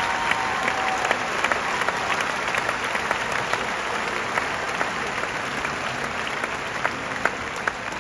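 Large arena audience applauding at the end of a song, the applause slowly dying down, with a few sharp claps close by. A faint held note ends about a second in.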